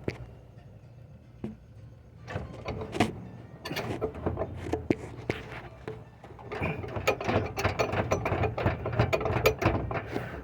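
Chevrolet Express 1500 underbody spare-tire hoist being cranked with the jack-handle extension to lower the spare: rapid mechanical clicking and rattling. It starts about two seconds in, with a short let-up about six seconds in.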